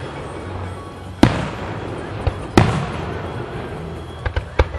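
Aerial fireworks shells bursting: two loud bangs about a second and a half apart, each trailing off in a long echo, then a quick run of smaller sharp pops near the end.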